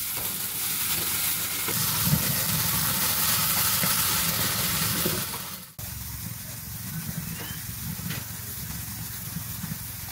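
Fresh alfalfa frying with tomato, onion and chile in an oiled skillet, sizzling steadily. A little past halfway the sizzle cuts off abruptly, leaving a fainter steady hiss.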